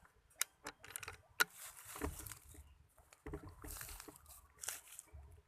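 Close rustling and crunching with several sharp clicks scattered through, like movement and handling near the microphone.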